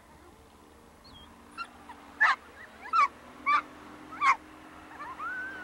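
An animal barking or calling: four short, sharp calls about two-thirds of a second apart in the middle stretch, over a low steady hum that comes in about halfway through.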